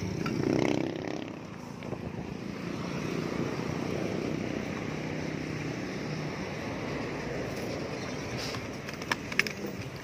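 Steady rush of road traffic going by, then a few sharp clicks near the end as a plastic motorcycle top box is unlatched and opened.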